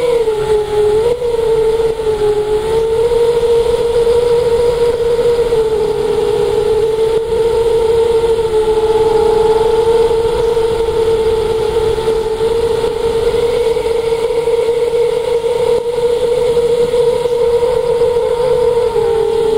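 Motor and propeller of a radio-controlled aircraft, heard from a camera on board: a steady buzzing whine that dips slightly in pitch near the start and again near the end, over wind rushing on the microphone.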